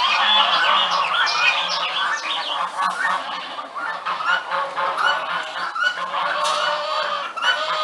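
A flock of geese honking continuously, many calls overlapping, thinning slightly into more separate honks after about three seconds.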